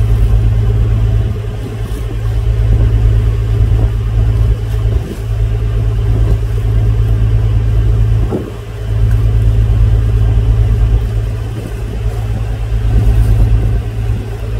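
Boat's inboard engine running steadily, heard from inside the cabin as a loud, deep drone with a fast even throb. It eases off briefly about eight seconds in.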